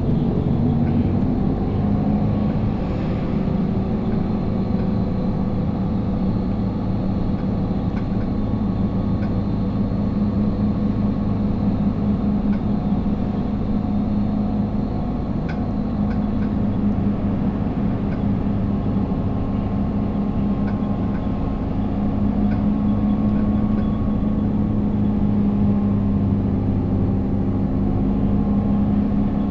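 Isuzu Erga non-step city bus (2TG-LV290Q3) under way: a steady diesel engine drone with running noise. The engine note drifts gently up and down, and there are a few faint clicks.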